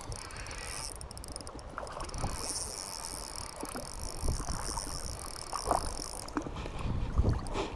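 Spinning reel being cranked as a small yellowfin whiting is wound in, a steady high whir over wind and water sloshing. The whir stops about six seconds in, and the fish splashes at the surface as it is brought close.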